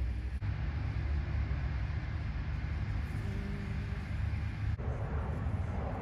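Outdoor city background: a steady low rumble of distant traffic under a faint even hiss. The background shifts slightly about five seconds in.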